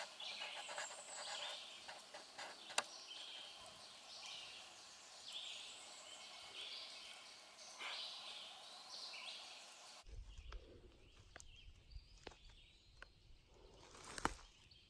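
Faint woodland bird song, short chirping phrases repeating over a quiet forest background. About ten seconds in, the sound changes abruptly to low wind rumble on the microphone with a few light clicks and a louder knock near the end.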